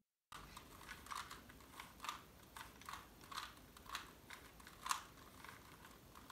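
Two Rubik's cubes being twisted by hand: faint, irregular plastic clicks as the cube layers turn, about two a second.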